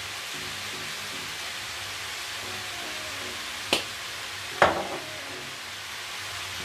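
Chopped vegetables sizzling steadily in a frying pan on a gas hob. Two sharp clicks come about three and a half and four and a half seconds in, the second ringing briefly.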